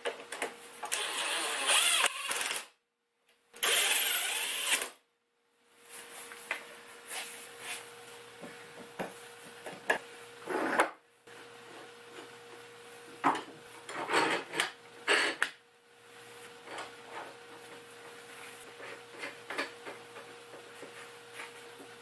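Workshop handling and tool noises: two short rasping bursts, then scattered clicks and knocks with a few more brief bursts, broken twice by dropouts to dead silence.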